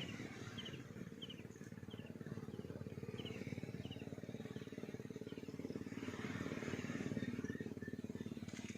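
A small engine running steadily, with a fast even pulse. A bird chirps repeatedly over the first few seconds.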